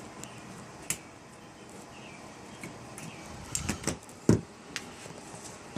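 Door and latch of a smoker converted from a 1946 GE refrigerator being handled: a few scattered clicks and rattles, then a cluster of knocks and one loud clunk a little after four seconds in.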